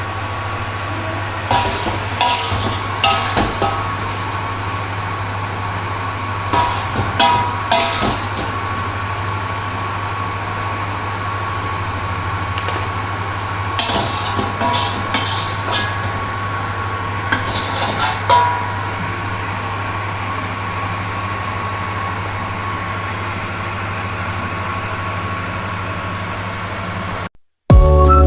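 Metal kitchen utensils clinking and scraping against a pan or dish in four short bursts, over a steady low hum.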